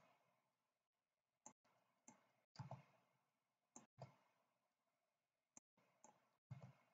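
Faint, irregularly spaced clicks from a computer mouse and keyboard, about seven in all, with near silence between them.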